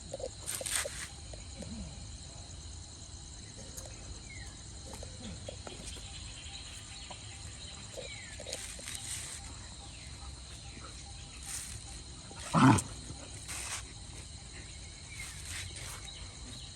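A dog gives one short, low bark about three-quarters of the way in, the loudest sound here. Behind it runs a steady high drone of insects, with a few light clicks.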